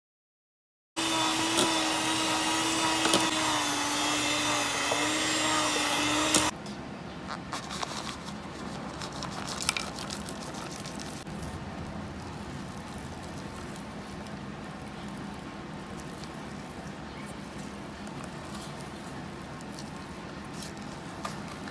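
Electric stand mixer motor running with a steady whine as its beaters churn thick chocolate cookie dough in a stainless steel bowl; it stops about six seconds in. After that, quieter scraping and light taps as a silicone spatula folds chopped dark chocolate into the dough against the steel bowl.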